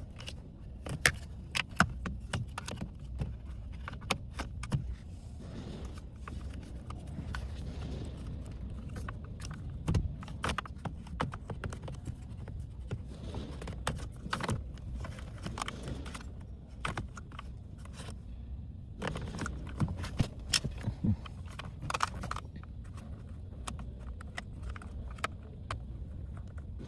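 Irregular plastic clicks and small knocks from hands handling and fitting a car's replacement exterior light switch, over a steady low background rumble.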